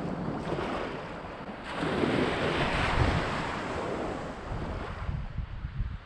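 Wind buffeting the microphone over small waves washing at the shoreline, swelling to a louder rush about two seconds in before easing off.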